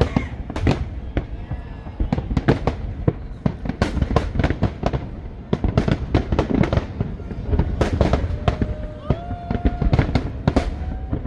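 Fireworks display: a dense, irregular run of bangs and crackling bursts, several a second, with a few brief held tones partway through.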